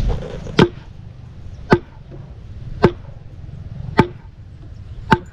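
Machete chopping at the base of a trellis post and the grass around it: five sharp chops about a second apart, each with a short ringing.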